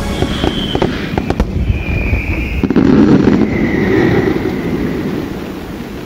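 Fireworks display: aerial shells bursting with scattered sharp cracks, then a dense crackling rumble loudest about three seconds in, dying away toward the end.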